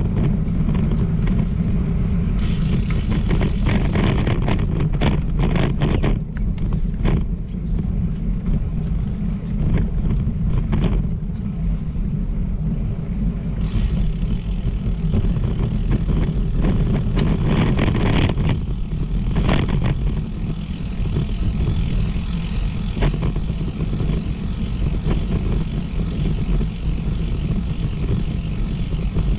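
Steady low wind rumble buffeting the microphone while on the move, with frequent short rattles and clicks over it.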